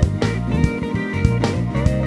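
Live gospel band music: an electric guitar playing over a drum kit beat.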